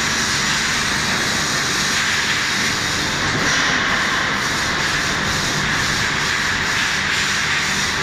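Steady din of machinery on a steel-tube production floor: a constant hissing roar with a low rumble underneath.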